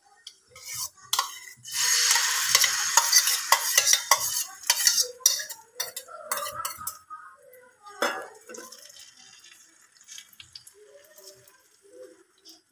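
Beaten egg mixture poured from a steel bowl into hot coconut oil in a frying pan, sizzling loudly from about two seconds in, with a spoon scraping and clinking against the bowl. The sizzle dies down after a few seconds to a faint frying hiss, with occasional taps.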